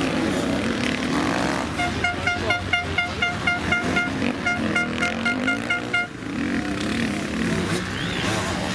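Enduro dirt bike engines running and revving, their pitch rising and falling. From about two seconds in to about six seconds, a rapid run of short, high beeps, about five a second, with a brief break midway.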